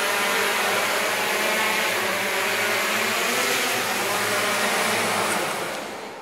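Multirotor drone's propellers buzzing steadily as it flies down and lands. The sound fades out near the end.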